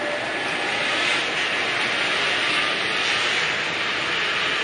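Diesel commuter train (KRD) passing at speed, giving a steady noise of wheels on rails that swells about a second in and eases near the end.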